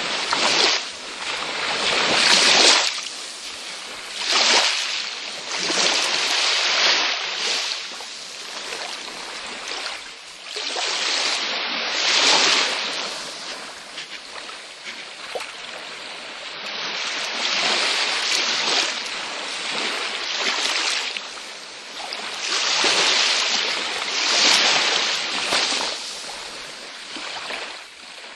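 Small waves washing ashore on a beach, a hissing wash that swells and falls back every two seconds or so.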